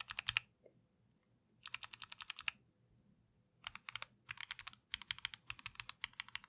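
Typing on a Keychron Q1 mechanical keyboard fitted with Kailh Box White clicky switches, each keypress a sharp click. Quick bursts of about ten clicks a second with short pauses between them, turning into steadier typing from about halfway through.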